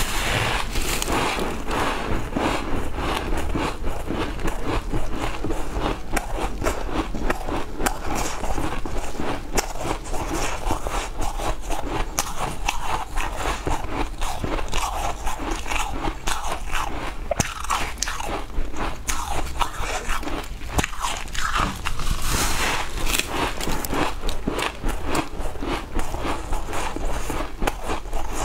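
Crunching of ice being bitten and chewed: bites into a frosty block of ice and the pieces ground between the teeth, a dense, continuous run of crisp cracks and crackles.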